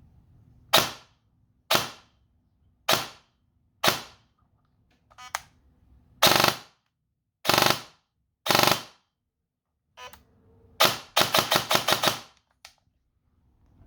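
Airsoft electric gun firing about eight single semi-auto shots roughly a second apart, then a quick full-auto burst of several rapid shots near the end.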